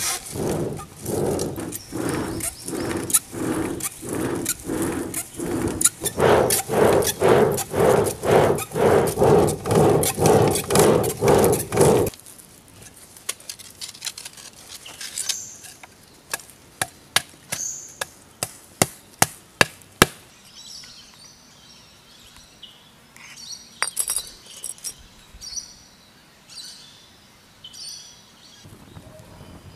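Clay pot bellows pumped in a steady rhythm of about two puffs a second, blowing air into a charcoal furnace; the pumping stops abruptly about twelve seconds in. A run of about ten sharp knocks follows, then faint bird chirps.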